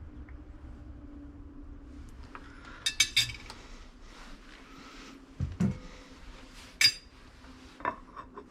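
Metal cutlery clinking against dishes: a quick run of sharp clinks, then two dull knocks and two more single clinks, over a faint steady hum.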